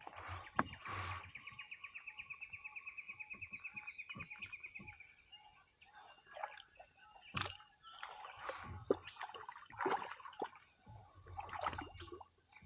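A bird's long, rapid trill, about eight notes a second, sliding slowly down in pitch over some four seconds. Scattered short knocks and splashy sounds follow.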